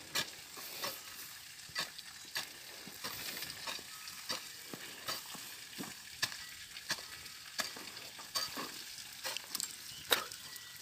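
Steel hand hoe chopping and scraping into soil and weeds in a steady run of short strokes, about one and a half a second, as the ground is cleared of weeds.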